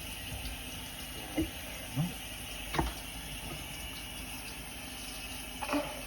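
A spatula scraping down the sides of a mixing bowl of shortbread dough, a few short light knocks and scrapes, over a steady background hiss.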